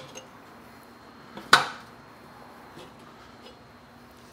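A steel tire iron clinking against a motorcycle's cast wheel rim as the last of the tire bead is levered off, with one sharp metallic clank about a second and a half in and a few light ticks around it.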